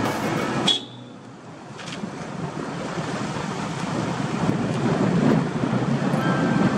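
Background music cuts off abruptly under a second in. It leaves the steady rush of a moving car's tyre and wind noise, which builds gradually louder.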